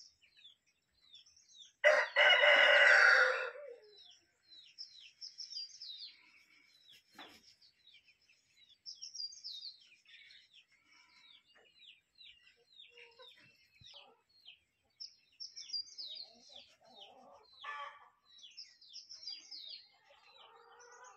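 Free-range chickens: a rooster crows once, loudly, about two seconds in, for nearly two seconds. Short, high, falling chirps run on throughout, and hens give lower clucks near the end.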